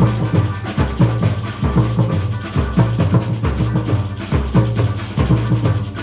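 Samba batucada percussion band playing: surdo bass drums beat a heavy pulse just under once a second, over a dense, fast rhythm of snare and shaker strokes.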